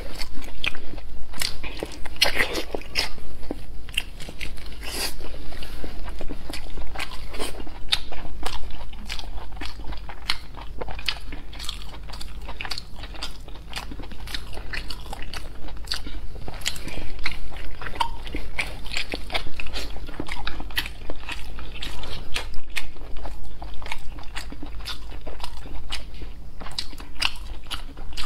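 Close-miked eating: biting into and chewing a long strip of meat held in chopsticks, with many quick, irregular mouth clicks and crackles throughout.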